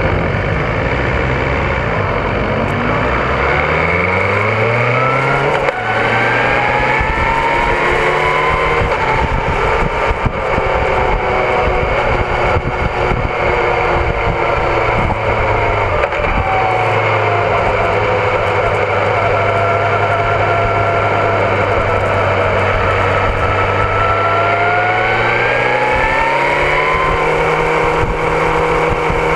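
BMW S1000RR inline-four engine, heard from the bike's own onboard camera, accelerating through the gears. The pitch climbs, breaks at an upshift about six seconds in and climbs again, holds fairly steady through the middle, then rises once more near the end, over a constant rush of noise.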